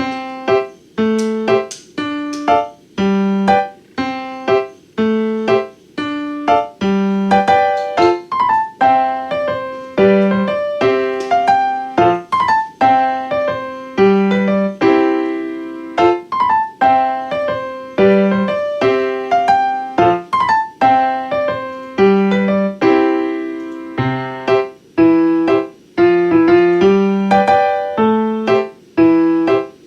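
Background music on piano or electric piano: a gentle keyboard tune of struck notes and chords at a steady, unhurried pace, about one a second.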